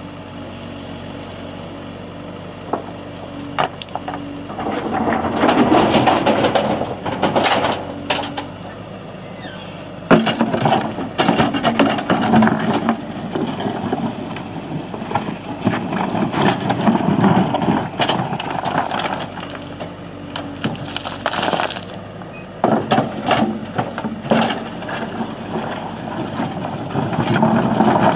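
JCB backhoe loader's diesel engine running and working, with repeated clattering and crunching of stone as the bucket digs and dumps. The stone noise comes in several loud stretches between quieter spells of engine.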